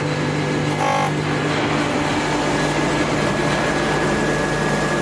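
Electric motor of the 1V340 lathe's main drive running at raised speed: a steady whirr over a low hum, with a thin high whine coming in about a second and a half in.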